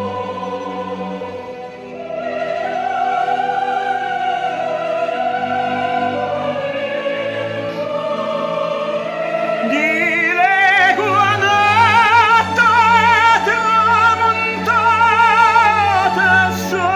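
Operatic male voice singing with a wide vibrato over orchestral accompaniment. The voice comes in strongly about ten seconds in, after an orchestral passage.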